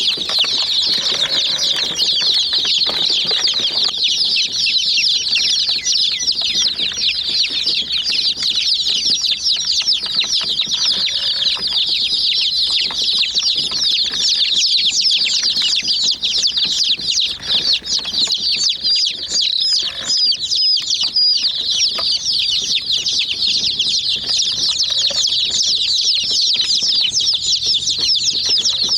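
A brood of young chicks peeping all at once: a dense, unbroken stream of overlapping high-pitched chirps.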